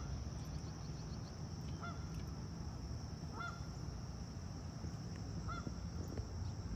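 Geese honking, four short faint honks about one and a half to two seconds apart, over a steady high chirring of crickets.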